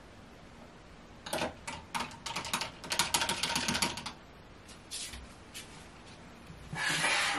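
Ice cubes clinking against a glass as a cold drink is stirred with a plastic stirrer: a quick run of clinks for about three seconds, then a few single clinks. Near the end comes a short rustle of a sweater sleeve brushing close to the microphone.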